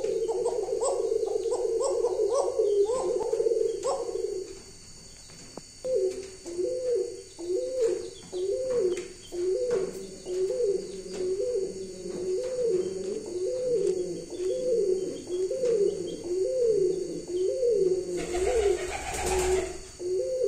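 Domestic pigeon cooing. A quick run of coos lasts about four seconds, then after a short pause comes a steady, evenly repeated coo a bit faster than once a second. A brief rustle comes near the end.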